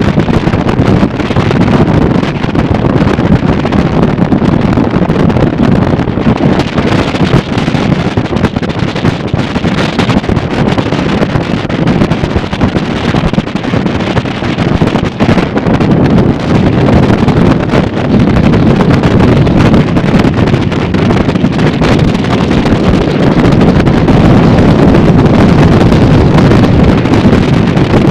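Heavy wind noise buffeting the microphone of a motorboat running at about 40 mph over open lake water, mixed with the steady sound of the boat underway.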